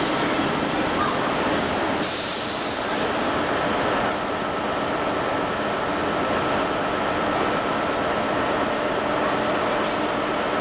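Steam locomotive working among the station tracks: a steady rumble, with a strong burst of hissing steam about two seconds in that lasts just over a second.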